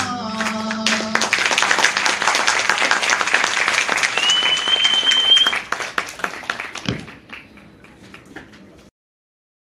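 The dance song's final note ends about a second in, and an audience breaks into loud applause, with one high whistle held for about a second. The clapping thins and fades over the last few seconds, then cuts off suddenly.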